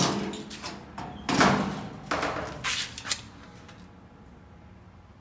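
Sheet-metal panels of an opened clothes dryer being handled: a sharp clank at the start, then three scraping rattles over the next two seconds.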